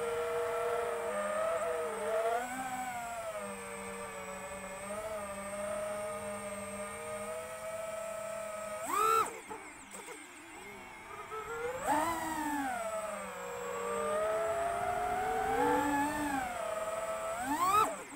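Electric motors of the Skyeliner HD FPV drone whining, the pitch rising and falling with the throttle as it rolls. There is a sharp throttle punch about nine seconds in and another near the end, each ending with the motors dropping back low.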